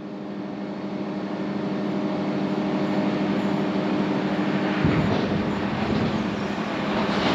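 A train approaching and passing: a steady hum with several held tones grows louder over the first few seconds, then a run of knocks from the wheels sets in about five seconds in.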